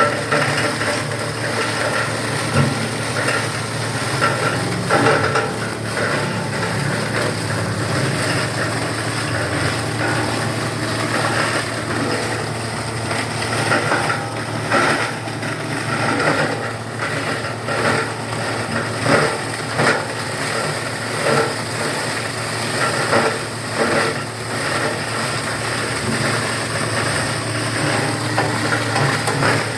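Paper and cardboard shredding machine running steadily with a constant hum, with irregular louder knocks and crackles throughout.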